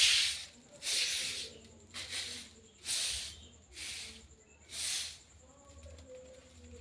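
Broom sweeping a concrete floor: six brushy strokes about a second apart, the first the loudest, ending about five seconds in.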